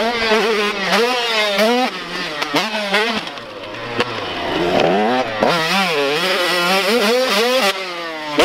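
Super Mini dirt bike engine revving hard and falling off again and again as it is ridden over jumps. The pitch climbs and drops roughly once a second with throttle, shifts and landings.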